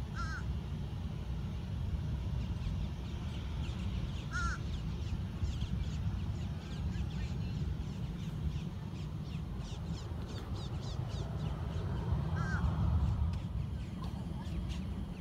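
A crow-like bird calling three short caws, several seconds apart, over a steady low rumble, with many faint quick high chirps joining from about five seconds in.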